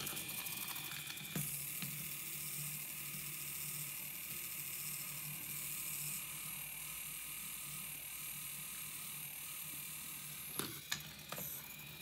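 DFRobot Maqueen robot car's small geared DC drive motors running steadily as the car drives across a wooden floor; they start abruptly. A few sharp clicks come near the end.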